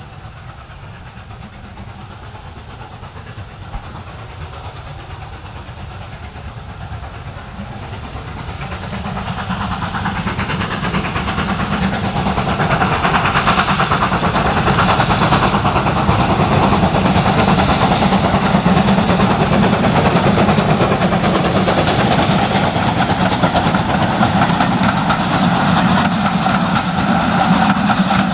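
Steam locomotive hauling a passenger train approaches, growing steadily louder over about ten seconds. Then it runs past close by, the coaches' wheels rolling loudly along the rails.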